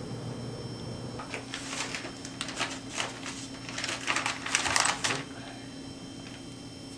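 A run of rapid clicking and clattering from objects being handled, growing louder toward the end and stopping about five seconds in. A steady low hum starts about a second in.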